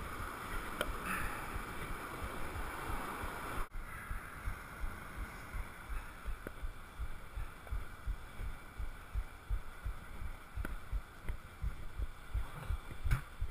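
Wind and surf noise on an action camera's microphone at the beach. About four seconds in it breaks off sharply and turns quieter. After that comes a run of low, irregular knocks and bumps as the bike is moved over the sand.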